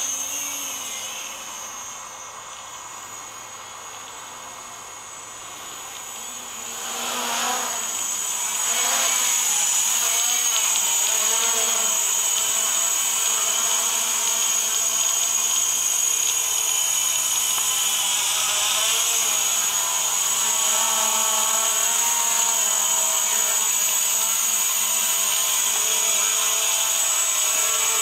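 Quadcopter's electric motors and propellers running: a steady high whine and buzz whose pitch wavers as the throttle changes. Fainter at first, it grows louder about seven or eight seconds in as the quadcopter comes close, then holds steady.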